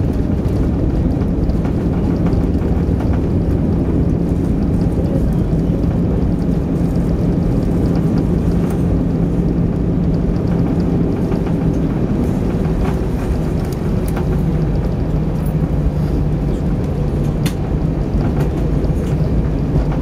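Cabin noise inside an Airbus A320 rolling along the runway after touchdown: a steady low rumble from the engines and the wheels on the runway, with a steady hum under it. A few light clicks or rattles come through now and then.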